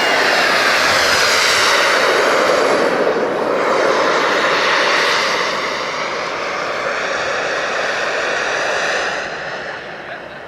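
A radio-controlled model airplane's engine flying past, loud, with a rising and falling sweep as it passes; it fades away near the end.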